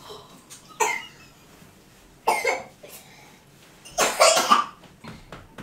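Three short coughs about a second and a half apart, the last the loudest.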